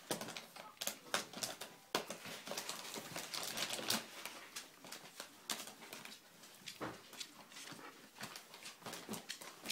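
A cat pawing and scratching at the front of a cabinet, making irregular taps and scrapes, with a busier run of scraping about three to four seconds in.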